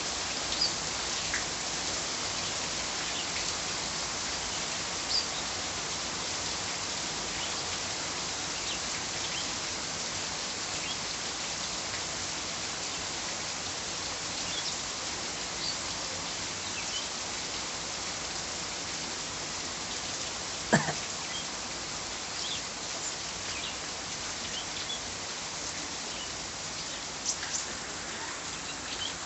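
Steady rain falling, with faint short bird chirps now and then. One sharp knock about two-thirds of the way through.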